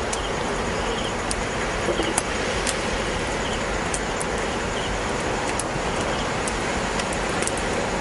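Campfire crackling with scattered sharp pops over a steady rushing background, with faint short chirps now and then.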